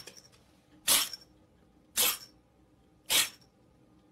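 Kitten sneezing over and over: three short, sharp sneezes about a second apart.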